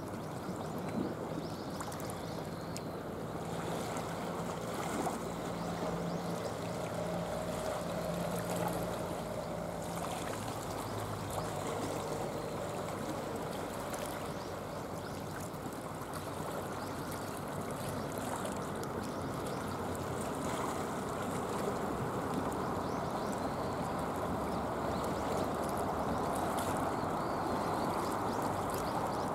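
Seawater washing and swirling over shallow shoreline rocks, a steady rushing sound.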